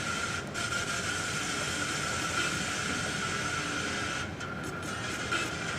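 Electronic sound effect played back from a computer during a MaKey MaKey sample performance: a steady hiss with a constant high ringing tone, briefly dipping twice.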